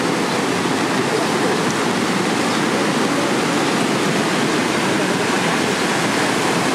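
Kali Gandaki River in flood: a wide torrent of fast water rushing steadily and loudly, with no let-up.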